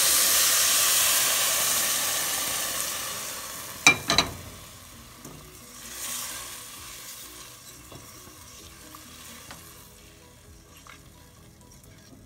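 Hot water poured onto rice browned in olive oil: a loud sizzling hiss that dies away over the first few seconds. A sharp metallic clink about four seconds in, then the water bubbling quietly in the pot as the rice is stirred.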